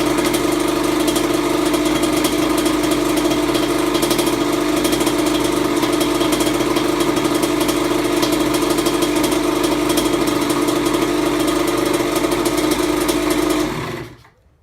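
Kawasaki KX100 single-cylinder two-stroke engine idling steadily, running after a full engine rebuild. Near the end it cuts out quickly.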